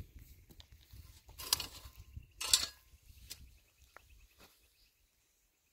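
Steel shovel blade scraping through dry, loose soil: two short scrapes about a second apart near the middle, with a few light taps and rustles of earth around them.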